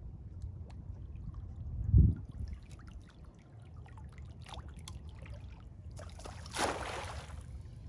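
Water trickling and splashing in shallow river water, with a low thump about two seconds in and a short, louder splash about a second before the end.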